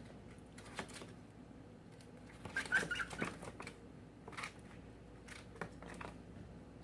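Scattered light taps and crinkles of a brown paper bag as cockatiels move in and on it, a few at a time.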